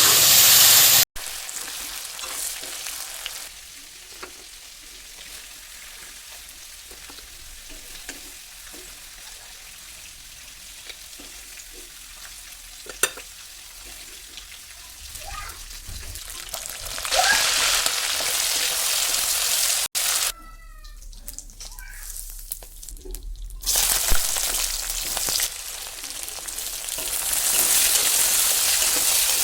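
Chicken pieces frying in hot oil in a pan, sizzling with some stirring; the sizzle gets louder in several stretches. There is one sharp tap about halfway through.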